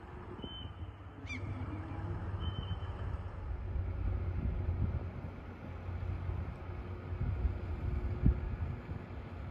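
Steady low rumble of a yacht under way, with two short high calls in the first two seconds and a single sharp knock about eight seconds in.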